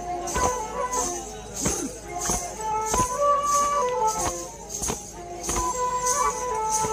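Tribal folk dance music: a drum beat comes about three times every two seconds, with jingles shimmering on each beat, under a melody of long held notes that step up and down.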